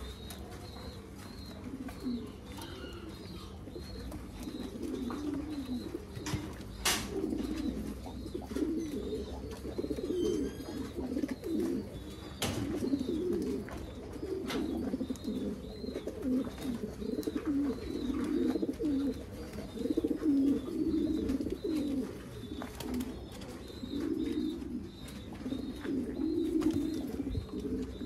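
Saddle fantail pigeons cooing over and over in low, rolling coos, with a faint high chirp repeating about once a second behind them.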